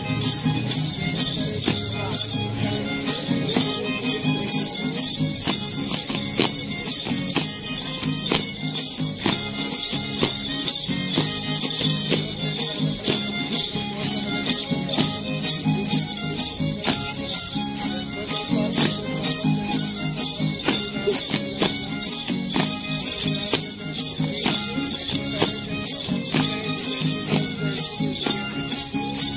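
Many hand-held gourd rattles shaken together in a steady beat, about two to three strokes a second, over a violin and guitar playing a Huastecan dance tune.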